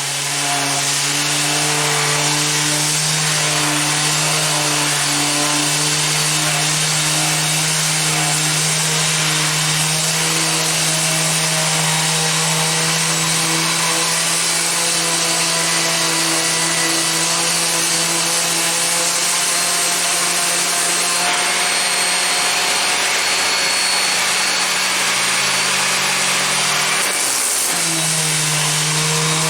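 Mac Allister SOS300 300 W corded random orbital sander running steadily with its pad against rough wood, a constant motor hum under the hiss of abrasive paper. The hum dips briefly about two seconds before the end, then picks up again.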